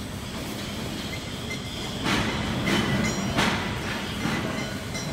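Welding positioner's tilt drive running as the work table tilts back toward horizontal: a steady mechanical hum, with a series of louder grating surges starting about two seconds in.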